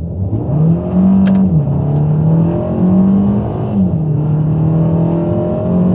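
Kia Ceed GT's 1.6-litre turbocharged four-cylinder engine pulling hard under full-throttle acceleration, heard from inside the cabin. The engine note climbs, then drops sharply at two upshifts, about a second and a half in and about four seconds in.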